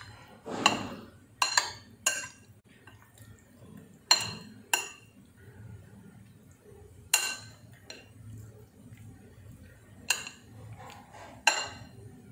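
A metal spoon clinking against a cut-glass bowl as it stirs chunks of raw tuna in a marinade. There are about ten sharp, ringing clinks at irregular intervals.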